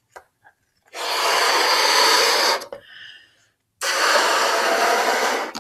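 A balloon being blown up by mouth: two long, even breaths blown into it, each lasting under two seconds, with a short breath taken in between.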